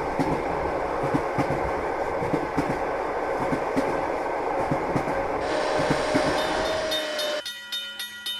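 Train running along the rails, its wheels clacking over the rail joints. The run breaks off suddenly about seven seconds in and gives way to a quieter sound of steady, evenly repeating tones.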